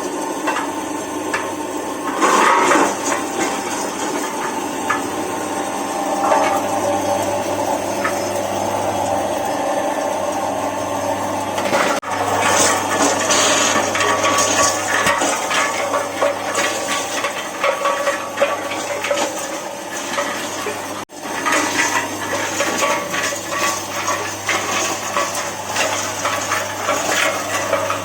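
A tapioca flour machine running, with water rushing and splashing through it over a low steady hum. The sound breaks off abruptly twice, about twelve and twenty-one seconds in, and resumes each time.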